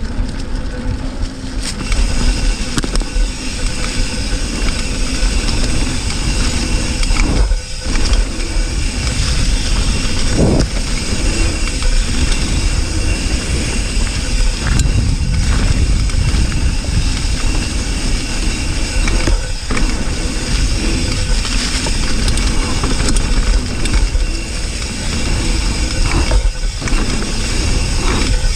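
Wind rushing over an action camera's microphone and tyres rolling over a dirt trail as a hardtail mountain bike is ridden fast, a steady heavy rumble with a few brief lulls.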